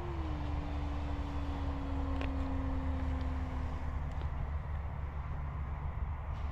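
Electric RC aerobatic plane, an E-flite Extra 330SC, in flight: its motor and propeller hum at a steady pitch that drops slightly just after the start and fades away about four seconds in, over a steady low rumble.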